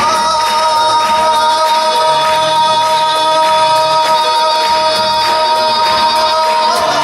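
Music: one long pitched note is held for about seven seconds over light rhythmic accompaniment, and it wavers just as it ends.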